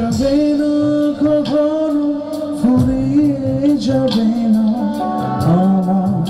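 A male singer singing live with band accompaniment, drawing out long held notes that waver and bend in pitch, over regular drum beats.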